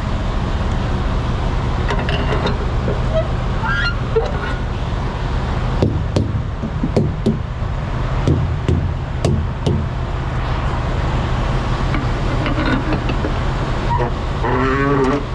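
Steady low rumble of a running vehicle engine, with a run of sharp clicks through the middle.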